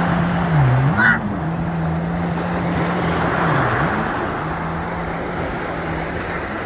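Ocean surf, a steady wash of breaking waves. Under it runs a steady low hum that dips in pitch twice, and a short high chirp sounds about a second in.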